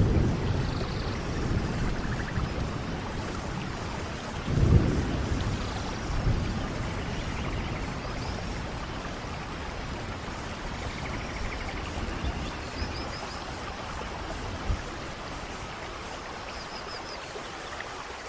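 Steady rain with rolling thunder. A low rumble swells about four and a half seconds in and fades, with smaller rumbles after it. A few faint high chirps come through the rain near the end.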